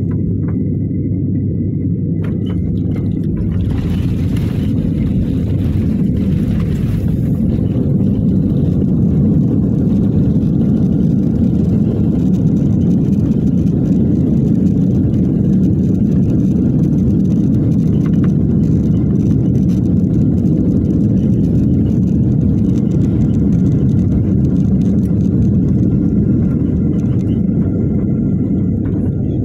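Jet airliner's landing roll heard from inside the cabin: a steady loud low rumble of the engines and the wheels on the runway, with the ground spoilers raised on the wing. A rushing hiss comes in about four seconds in and lasts a few seconds, and the rumble grows a little louder after that.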